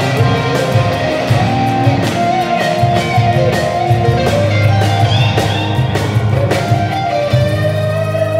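Live acoustic band playing: acoustic guitar strumming together with an electric keyboard, with held and gliding melody notes above a steady low end.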